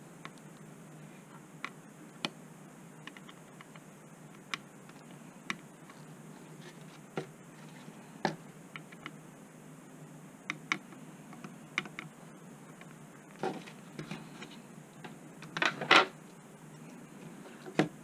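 Scattered small clicks and taps as a circuit board and soldering iron are handled during soldering, with a louder clatter near the end as the board is turned over and set down on the desk. A faint steady hum runs underneath.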